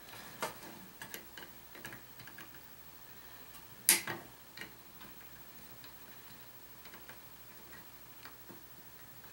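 Fingers handling a small circuit board while a replacement capacitor is fitted: scattered light clicks and taps, with one sharp click about four seconds in.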